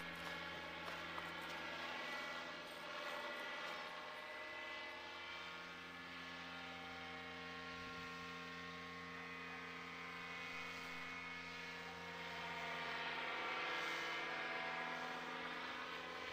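Powered paraglider's paramotor engine and propeller droning steadily overhead, getting somewhat louder about three-quarters of the way through.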